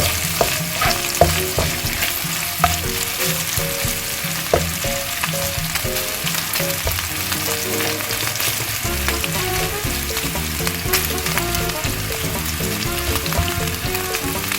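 Bacon sizzling in hot oil in a frying pan with garlic as it turns crispy, with the occasional click of a spatula stirring it. Soft background music runs underneath.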